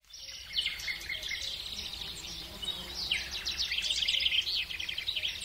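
Several birds singing and chirping together, with quick repeated trills, busier from about three seconds in.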